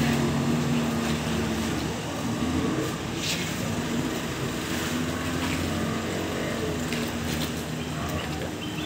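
Outboard engines of small passenger speedboats running as the boats move off, a steady drone over the hiss of water.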